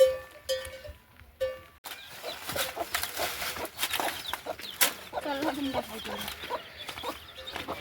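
A metal animal bell clanks a few times in the first two seconds, then chickens cluck and chatter.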